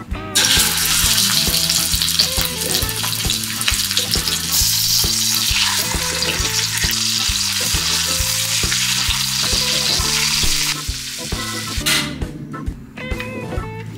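String-tied roll of pork searing in hot fat in a stainless steel frying pan, turned with tongs: a loud, steady sizzle that starts just after the beginning and stops about eleven seconds in. Background music with a bass line plays underneath.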